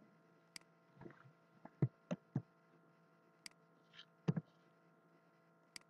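Scattered short clicks and taps of a computer mouse and keyboard being used, about eight in all, a few of them louder, over a faint steady electrical hum.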